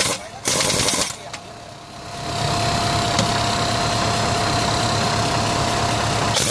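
A 1-inch heavy-duty pneumatic impact wrench hammering on a truck's wheel nuts, first in two short bursts, then in a steady run of about four seconds, with a short burst at the end. A steady hum runs underneath.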